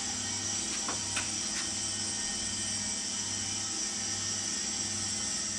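CO2 flowing from a cylinder through a two-gauge regulator into two linked stainless kegs: a steady high hiss as the kegs are pressurised for purging, with a few light clicks about a second in.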